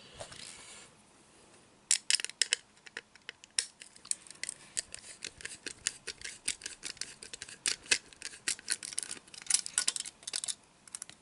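Small metal tool clicking and scraping against a hard plastic display base while a 1:64 diecast car is worked loose from it. A quick, uneven run of small clicks and scratches starts about two seconds in.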